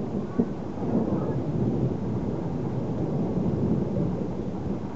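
Thunder rumbling low and steadily during a thunderstorm.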